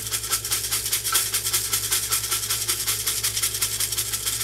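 Small shaker bottle of bacon-flavoured bits shaken quickly and steadily, the dry bits rattling inside.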